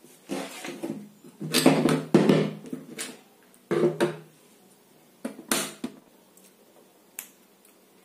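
A few short knocks and rustles of hands handling a table fan's stator coil and its test wires on a workbench, with quiet gaps between them.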